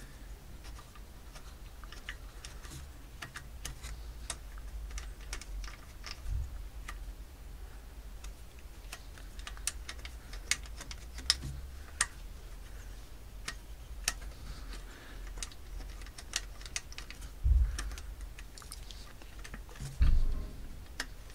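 Scattered small metallic clicks and ticks as the cam chain tensioner cover bolts on a BMW K1600 engine are spun out by hand. Two dull thumps come near the end.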